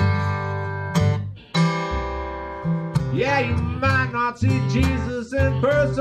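Acoustic blues band playing: a strummed acoustic guitar over low plucked washtub bass notes. About halfway through, a bending, wavering lead melody joins on top.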